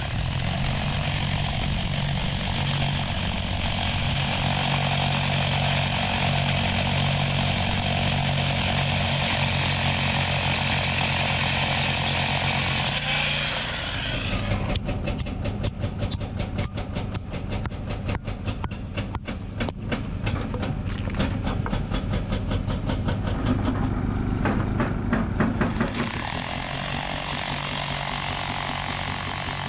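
Excavator's diesel engine running steadily. From about halfway in, a hydraulic breaker hammer on the excavator pounds rock in a long run of rapid blows for about twelve seconds, then the engine runs on alone.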